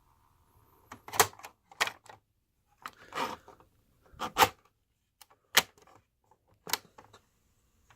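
Clicks and clunks from the plastic transport keys of a Magnavox D7160 radio/cassette recorder being pressed and handled: about seven short, sharp clicks at uneven intervals.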